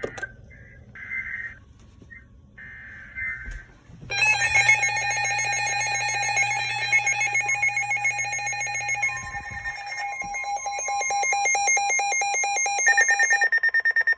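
Electronic weather alert alarm sounding for a new severe thunderstorm warning: a loud alarm of several tones at once with a fast repeating pulse, starting about four seconds in. Near the end it switches to rapid, even beeping.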